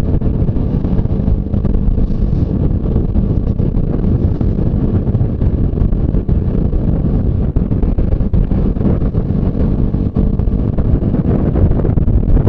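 Motorcycle riding at speed, heard through a rider-mounted microphone: a steady engine hum under heavy wind rushing on the mic.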